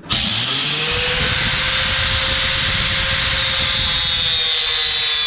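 Angle grinder spinning up and cutting into a steel cage bar: a steady high whine over a rough grinding noise, the pitch rising in the first second and then holding.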